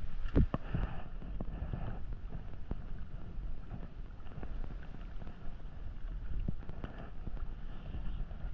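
Wind buffeting the microphone as a steady low rumble, with a few sharp knocks in the first second.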